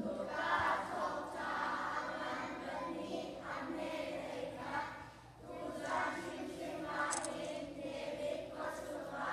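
A children's choir singing together, with a short break a little past halfway.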